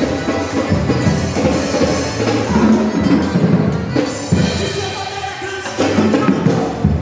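Drum kit played along with a worship song, with singing in the music. The band eases off about five seconds in and comes back in full about a second later.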